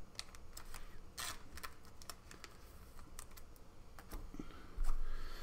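Trading cards being handled and slid into a plastic penny sleeve: soft, irregular clicks and rustles of card stock and plastic, with a dull knock near the end.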